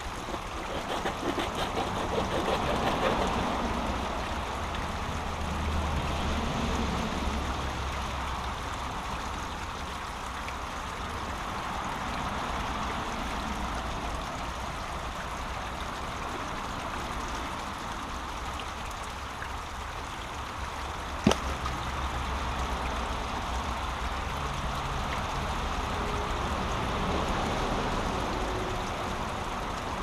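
Small brook running and trickling through a blockage of logs and litter. A single sharp knock about two-thirds of the way through.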